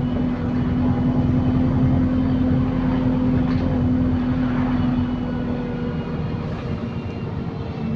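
Optare Solo SR bus with Voith automatic gearbox running along at steady speed, heard from inside the saloon. There is a drone of road and engine noise and a strong, steady whine that holds one pitch, then eases off about six seconds in.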